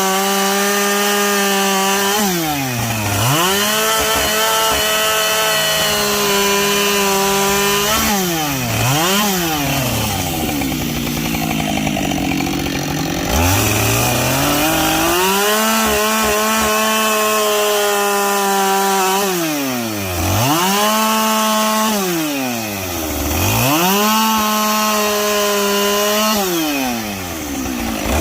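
Two-stroke chainsaw bucking logs, running at high revs for long stretches. The throttle is let off and opened again about five times, so the pitch drops sharply and climbs back each time. Around the middle the engine note sags lower and wavers for a few seconds as the chain bites into the wood under load.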